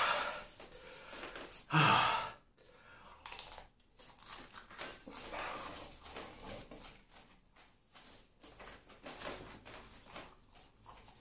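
A man's pained vocal outburst at the start and a louder voiced groan about two seconds in, then quieter, uneven breathing and sighs, his reaction to the burn of a Moruga Scorpion chilli.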